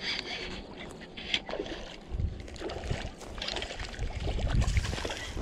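Wind buffeting the microphone in uneven gusts that build in the second half, over the light mechanical sound of a spinning reel being cranked to retrieve line.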